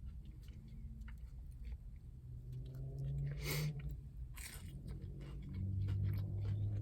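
A person chewing a mouthful of fast food (chicken nuggets and fries) close to the microphone, with small wet mouth clicks and two short breaths about halfway through. A low closed-mouth "mm" is hummed twice, once mid-way and once near the end.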